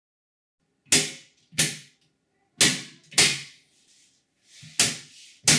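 Six sharp knocks, each with a short ringing tail, coming in uneven pairs.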